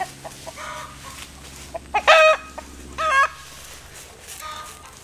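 Chickens calling: fainter clucks, then two loud, short calls about two and three seconds in. The calling comes from a hen that is about to lay an egg.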